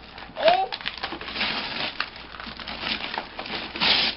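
Cardboard toy box and its packaging being pulled and torn open, with crackling, tearing and rubbing and many small clicks. A louder rip comes just before the end.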